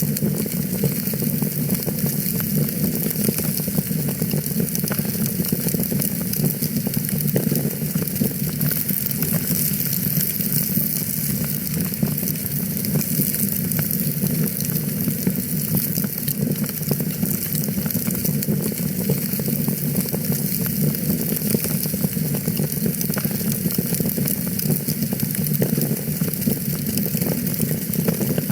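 Wood fire in a fireplace burning with a steady hiss and many small crackles and pops.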